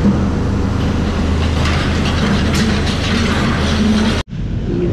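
Steady road and engine noise of a moving vehicle, with a low hum. It drops out abruptly about four seconds in, then resumes duller.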